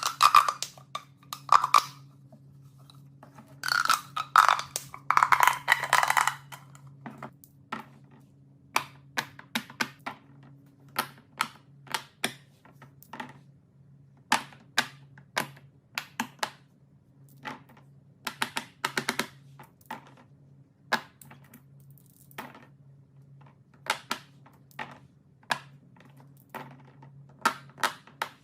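Light, irregular clicks and taps of small hard objects, clustered in the first six seconds and then coming about once a second, over a steady low hum.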